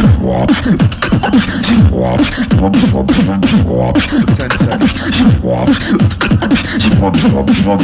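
Solo vocal beatboxing with a fast, steady beat of sharp snare and hi-hat sounds. Beneath it, deep bass notes glide downward over and over.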